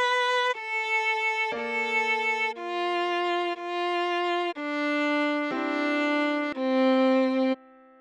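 Viola playing a slow melody of sustained bowed notes, one note about each second, stopping shortly before the end.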